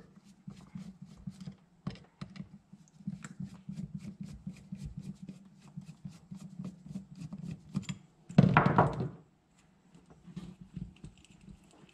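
Screwdriver working a small screw on a Suzuki LT185 carburetor's float bowl: a run of light metal clicks and scrapes. A louder thunk comes about eight seconds in.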